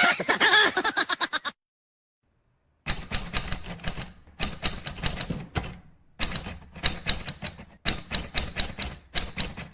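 Rapid typing on keys: quick runs of sharp keystroke clicks, each about a second long, with short pauses between. Before it, the tail of a voice sound ends and there is a second-long silence.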